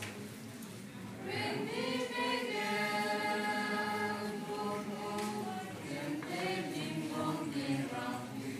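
A mixed group of young men and women singing a song together in unison-style choir, holding long notes. The singing is softer at first and swells louder about a second in.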